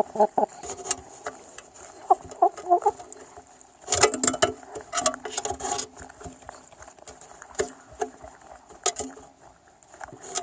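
Chickens pecking at feed, their beaks giving quick irregular taps, with short clucking calls now and then. A denser stretch of pecking and scratching about four seconds in.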